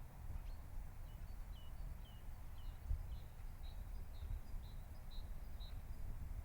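A small bird singing a run of short, high, repeated notes, about two a second, over a low rumble on the microphone.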